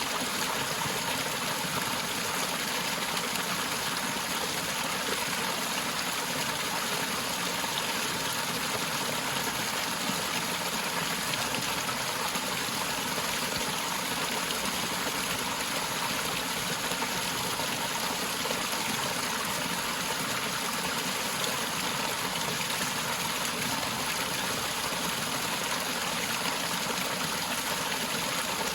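Forest waterfall: water falling and rushing in a steady, even wash with no breaks.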